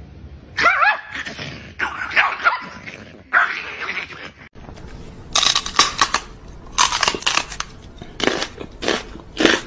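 A small dog snarling and growling in short bursts, teeth bared at a person's hand. About halfway through, a second small dog gives a series of short, sharp barks.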